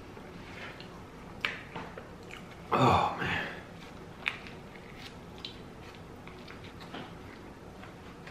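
Close-up mouth sounds of a man biting into and chewing a soft turkey sub sandwich, with small wet smacks and clicks and one louder burst about three seconds in.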